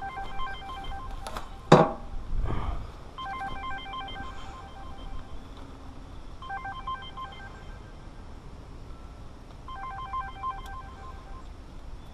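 A telephone ringing: an electronic trilling ring that comes in four bursts of one to two seconds each. Two sharp knocks come between one and two seconds in.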